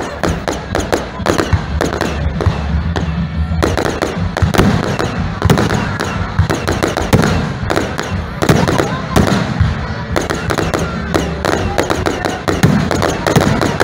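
Fireworks going off in rapid succession: aerial shells bursting, with many sharp bangs and crackles close together.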